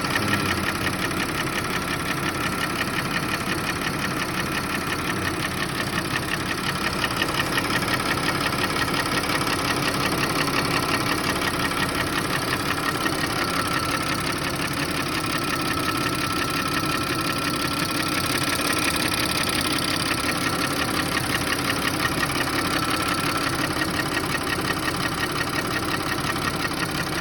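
Audi A6 C6 2.8 FSI V6 engine idling with a rapid, even knock. The owner says the knock appeared about a month after an oil change, is there hot or cold at low revs, and goes away when the revs are raised a little; its cause is unknown to him.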